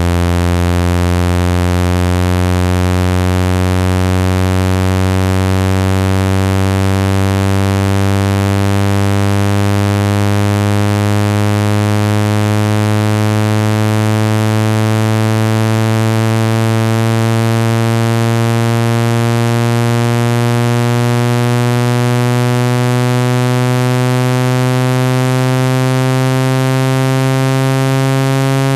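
Synthesized speaker-cleaning tone: a loud, buzzy low tone gliding slowly and steadily upward in pitch, a frequency sweep meant to shake water and dust out of a phone speaker.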